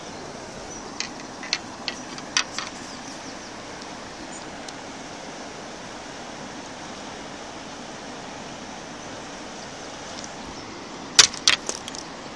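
Handling noise from a fishing rod and reel: a few sharp clicks early on, then a louder quick run of clicks near the end, over a steady background noise.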